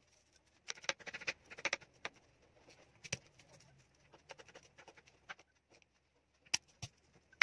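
Large kitchen knife mincing garlic on a bamboo cutting board: quick irregular knocks of the blade on the wood, in short runs during the first two seconds, then sparser single knocks, with a couple of sharper ones near the end.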